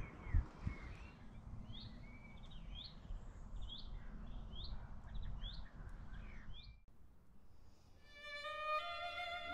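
A songbird repeating a short, rising chirp over and over, over a low outdoor rumble. This cuts off about seven seconds in, and music led by violins fades in near the end.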